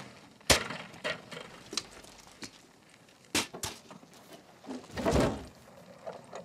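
A few sharp knocks and clacks spaced out in quiet, the loudest about half a second in and another just after three seconds, with a short rushing sound around five seconds.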